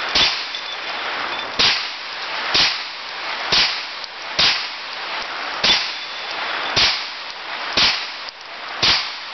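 Hi-Point 995TS 9mm carbine firing nine single shots, about one a second. These are the last shots of its ten-round magazine: the gun is reloaded right after.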